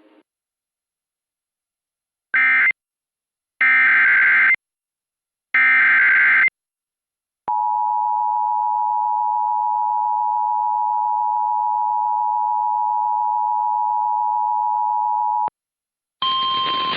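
Emergency Alert System broadcast: three short screeching bursts of SAME digital header data, followed by the steady two-tone EAS attention signal (853 and 960 Hz) held for about eight seconds before it cuts off.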